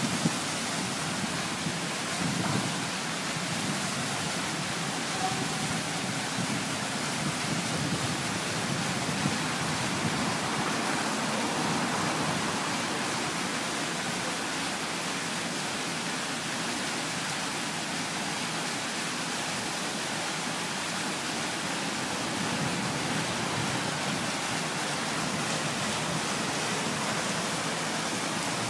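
Fountain water falling and splashing in a steady, even rush.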